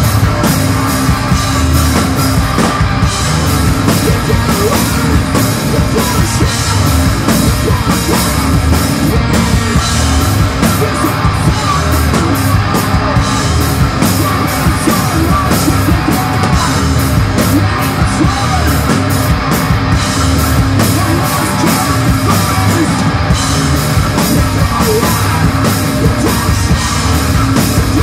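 Sludge/noise-rock band playing live: distorted guitar and bass over a full drum kit, loud and dense throughout.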